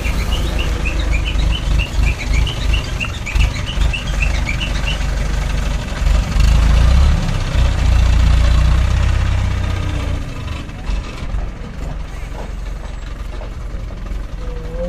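Diesel engine of an ACE mobile crane running, loudest in the middle as the crane drives off. Over the first few seconds there are rapid, repeated high chirps.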